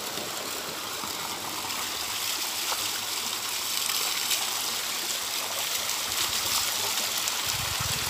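Water pouring steadily from a natural spring spout into a rocky pool: an even, continuous rushing hiss.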